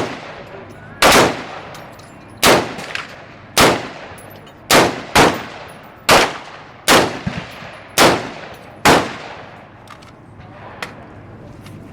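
Ruger SR556 AR-15 rifle fired semi-automatically: about ten shots at an uneven pace of roughly one a second, each with a ringing echo. The firing stops about nine seconds in.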